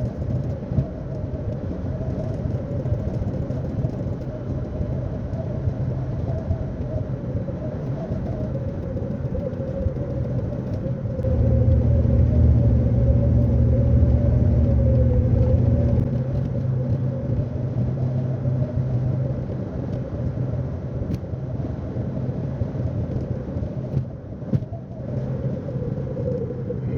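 Road and engine noise of a car being driven: a steady low rumble, louder for about five seconds near the middle.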